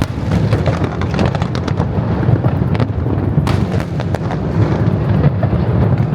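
Fireworks display: rapid overlapping bangs and crackling over a continuous low rumble, with one sharper crack about halfway through.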